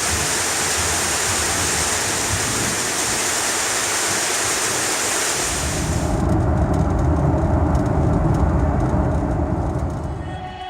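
Heavy rain pouring down as a steady hiss. About six seconds in the sound turns into a deeper, louder noise without the high hiss, and it fades near the end.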